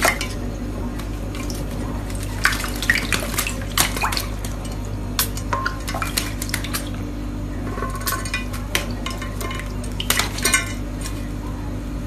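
Rainbow lorikeet bathing in a shallow ceramic dish of water: irregular splashing and wing-flapping, with sharp clicks and knocks against the dish, over a steady low hum.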